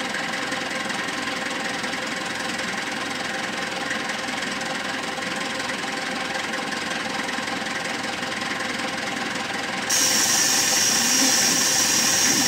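SYZG wheel loader's diesel engine running steadily while it works. About ten seconds in, a loud hiss joins it.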